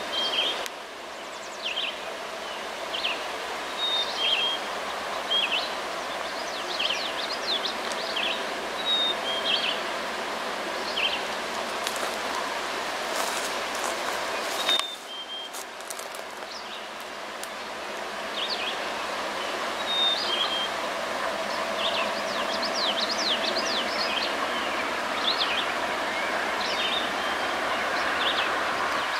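Songbirds chirping and singing repeatedly over a steady outdoor hiss. In the second half, the sound of an approaching diesel freight train slowly grows louder beneath the birdsong.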